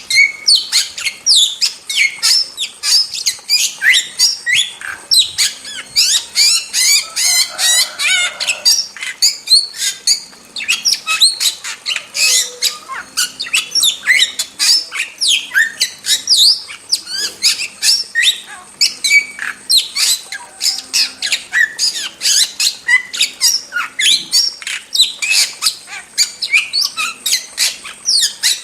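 Starling singing nonstop: a fast stream of short, sharp, downward-sweeping whistles and squawks, several a second, with a denser stretch of chatter about a quarter of the way in.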